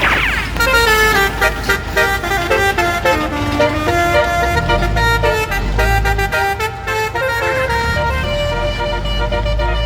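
Multi-trumpet 'telolet' bus horn playing a quick tune, its chords of several notes changing every fraction of a second, over a low rumble.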